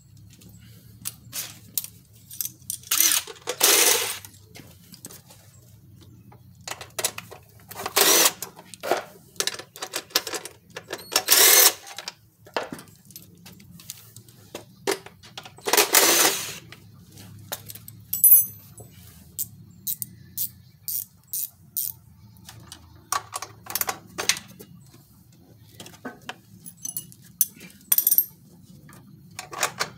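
Cordless drill-driver running in several short runs of about a second each as it backs out the bolts holding a lawn tractor's engine shroud, with metal clicks and clinks of bolts and tools in between.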